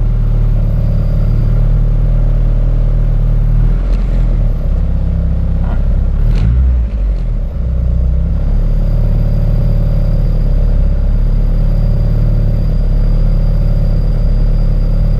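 Turbocharged Honda Integra engine running at a steady idle, its low note shifting briefly about six to seven seconds in.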